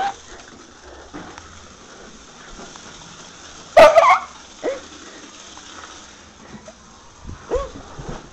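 An animal's short calls with bending pitch, four of them, the loudest about four seconds in.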